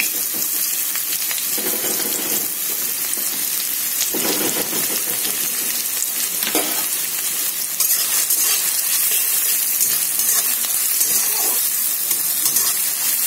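Chopped onion sizzling in hot oil with panch phoron in a kadai, stirred now and then. The frying hiss is steady, and it gets a little louder about eight seconds in.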